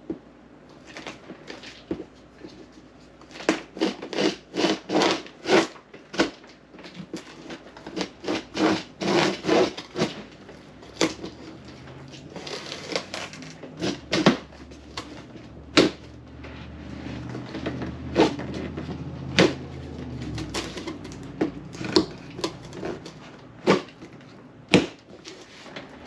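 Cardboard box being opened by dragging the lip of an MP5 airsoft magazine through its packing tape: a long series of sharp scratches, rips and clacks on the cardboard.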